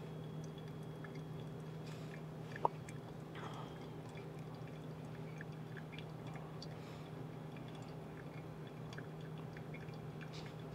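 Faint dripping of brewing coffee through a Kono paper filter cone, scattered small drips over a steady low hum. A single brief clink comes about two and a half seconds in.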